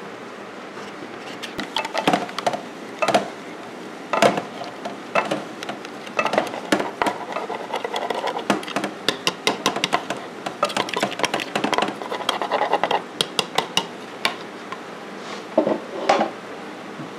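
A utensil clinking and scraping against a bowl in many quick, irregular taps, busiest through the middle, as a melted-butter sauce is spooned out over fish fillets in a ceramic baking dish.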